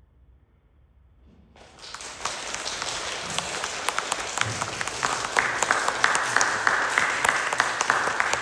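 Near silence, then audience applause breaks out about a second and a half in and swells, growing louder about halfway through.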